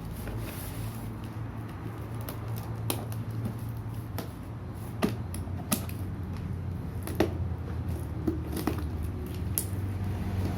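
Scattered sharp clicks and taps of a package being handled and opened, about six over the stretch, over a steady low hum.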